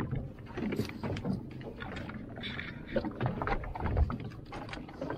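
Knocks, splashing and thumps against a small fishing boat's side as a mahi-mahi is gaffed and hauled aboard. A heavy low thump comes about four seconds in.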